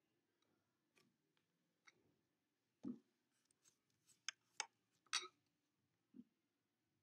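Near silence broken by a handful of short clicks and taps, a soft thud about three seconds in and a brief rustle a little past halfway: handling noise from a hand reaching over the paper.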